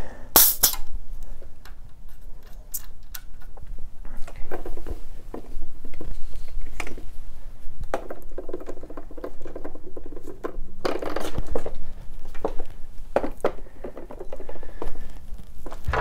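Floor pump being handled: scattered clicks, clinks and knocks as the pump head and hose are taken in hand, with a brief loud hiss about half a second in.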